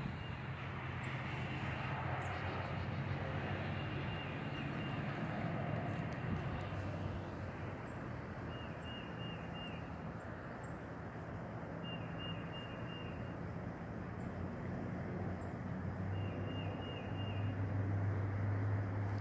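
Outdoor ambience: the low, steady hum of a vehicle engine, growing louder near the end. A small bird repeats a short, high trill about four times.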